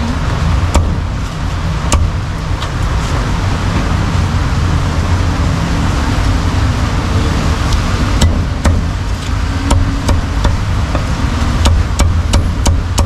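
A cleaver chopping roast pork belly on a round chopping block: a few single chops in the first two seconds, then a quickening run of sharp chops in the last five seconds. Steady low street-traffic rumble runs underneath.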